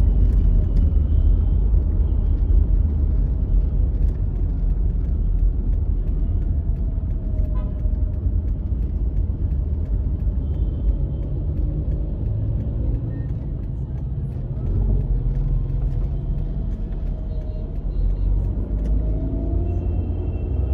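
Steady low rumble of a car's engine and road noise heard from inside the moving car, with a faint wavering hum over it.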